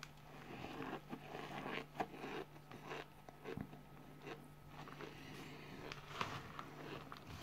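Dry cornstarch being bitten and chewed by the handful: faint, irregular crunching and crackling, with soft scraping as the powder is scooped from the plate.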